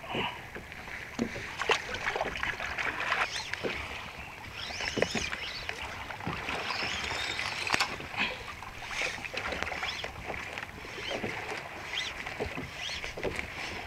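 Sea water lapping and splashing against a plastic kayak hull, with scattered short knocks and clicks from fishing gear being handled on board.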